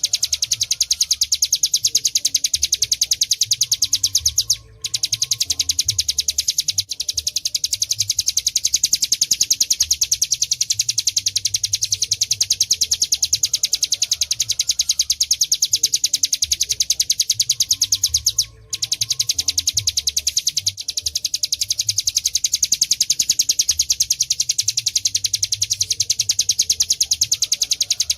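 Ciblek gunung (a prinia) singing its 'ngebren' song: a long, high, very rapid trill, almost unbroken, that pauses briefly twice, about 5 and 19 seconds in.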